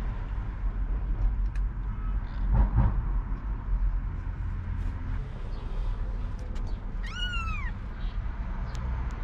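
A very young kitten gives one mew about seven seconds in, a single cry that rises and falls in pitch, over a steady low rumble, with a dull bump a few seconds earlier.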